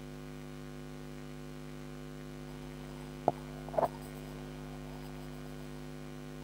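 Steady electrical mains hum on the recording, with one sharp click about three seconds in and a short faint noise half a second later.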